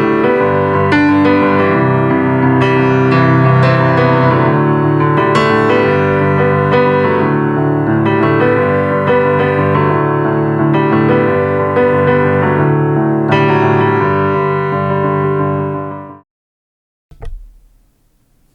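Piano music played through a homemade Bluetooth speaker with two 4-inch Dayton Audio woofers and a Dayton Audio tweeter, sounding in a kitchen. The music cuts off suddenly near the end, followed by a single click.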